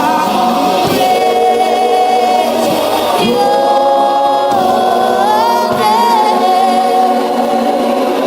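Gospel worship singing with long held notes that slide up and down in pitch, in a choir-like sound.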